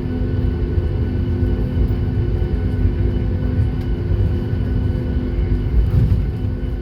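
Airliner jet engines running with a steady low rumble and a constant hum.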